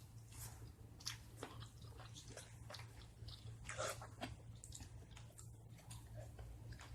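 Faint eating sounds of buffalo wings being bitten and chewed: irregular small smacks and crunches over a steady low hum.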